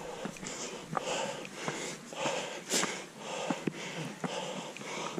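Heavy, rapid panting of a trail runner climbing a steep rocky path, with sharp clicks of shoes and stones underfoot.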